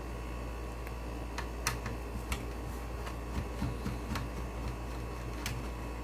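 Screwdriver and screws clicking against an LCD monitor's sheet-metal chassis as screws are backed out and handled: scattered light ticks at irregular intervals, over a steady low hum.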